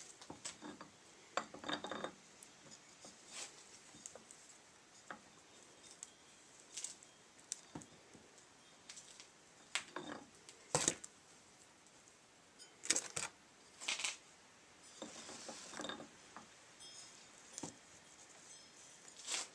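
Metal parts of a strut and coil spring assembly being handled and fitted together: irregular sharp clicks, clinks and light knocks, with a brief rustle partway through.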